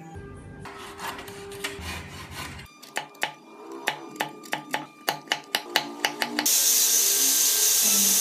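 A run of sharp clicks as a hand gouge pares a thin piece of wood, about three to four cuts a second, over background music. About six and a half seconds in, a rotary sanding disc comes on much louder with a steady hiss as it sands the wood.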